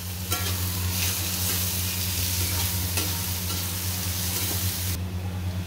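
Chopped onions sizzling in hot oil in an aluminium kadhai while a steel spatula stirs and scrapes them, over a steady low hum. The sizzle drops away sharply about five seconds in.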